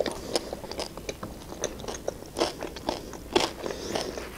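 Close-up chewing of a mouthful of chicken shawarma in lavash: irregular sharp mouth clicks and wet crackles, several times a second.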